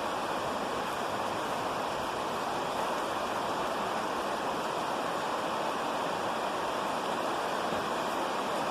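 Steady, even hiss of outdoor noise with no thunder, knocks or other distinct sounds.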